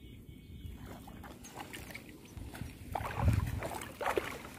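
Shallow pond water sloshing and splashing around a fishing net being hauled through floating weeds, with a louder surge of splashing about three seconds in.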